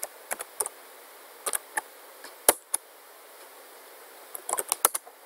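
Keystrokes on a computer keyboard: a few separate taps, then a quick run of clicks near the end.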